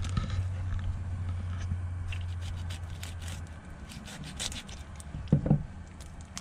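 Fillet knife scraping and cutting through a rainbow trout on a wooden cutting board, in short scrapes and light knocks, with a firmer knock a little past halfway. A steady low hum underneath stops about halfway through.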